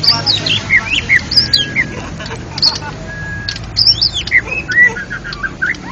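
White-rumped shama (murai batu) singing: a varied run of short whistled notes, quick slurs and rising and falling glides, with a few briefly held whistles.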